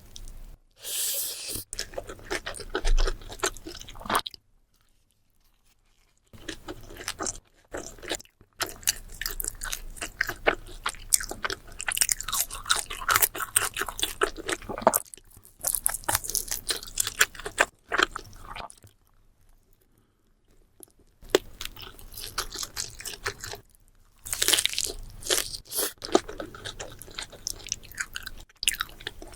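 Close-miked eating: biting into and chewing a large burrito, with crunching. Twice the sounds stop for a second or two.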